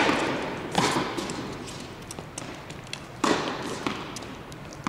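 Tennis ball struck by rackets on an indoor court, each hit sharp and echoing in the hall. The echo of one hit dies away at the start, then come two more hits, less than a second in and a little over three seconds in, with faint ticks of bounces and footsteps between.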